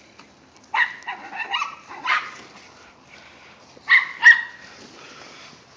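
Dogs barking and yipping: a handful of short, sharp barks in two bunches, the loudest pair about four seconds in.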